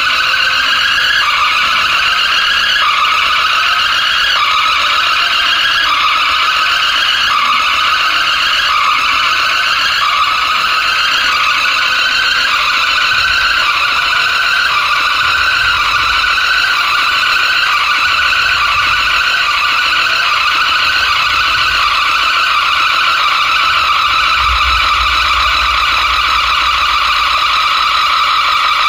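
Loud electronic DJ music from a road-show sound system: a harsh, noisy synth pattern that repeats in steps and quickens, with deep bass coming in about halfway through.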